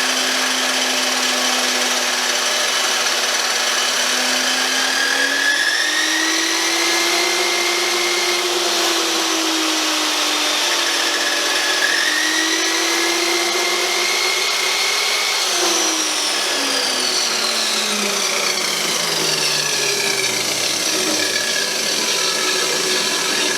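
Chicago Electric chop saw's motor spinning its abrasive cut-off disc at reduced speed through a fan speed controller. The whine rises in pitch twice as the speed changes, then the saw is switched off and winds down, its pitch falling steadily over the last several seconds.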